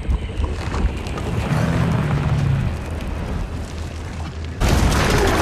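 Monster-film sound effects: a deep rumbling with a low drone about two seconds in, then a sudden loud crash near the end.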